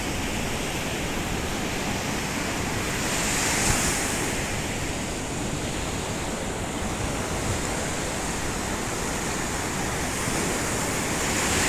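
Surf washing onto a sandy beach: a steady rush of breaking waves that swells louder about three and a half seconds in and again near the end, with wind rumbling on the microphone.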